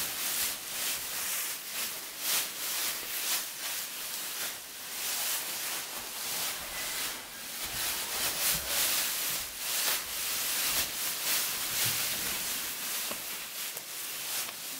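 Irregular rustling and shuffling in straw bedding as a foal's hooves and a person's feet move about, in uneven swells of dry, hissy noise.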